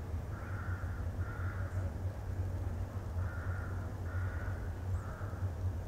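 Crows cawing, about five caws: a pair early on and three more later, over a steady low rumble.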